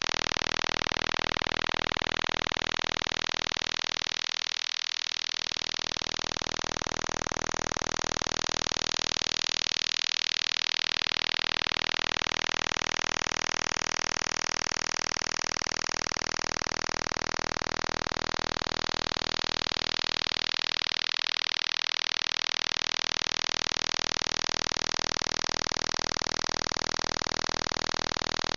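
Shortwave radio signal received through a web-based SDR receiver: a continuous buzz that fills the whole band, with its tone colour slowly shifting.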